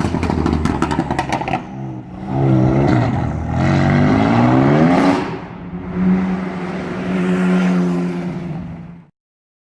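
BMW M4 F82's twin-turbo inline-six through an Akrapovic exhaust: a quick run of crackles and pops, then the engine rising in pitch twice as it accelerates, then holding a steady drone until the sound cuts off about nine seconds in.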